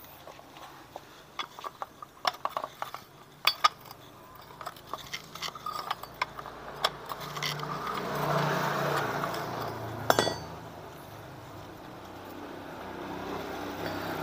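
Metal tools and parts clinking and tapping while a Honda Vario scooter's CVT is being taken apart. There is a louder metallic knock about ten seconds in.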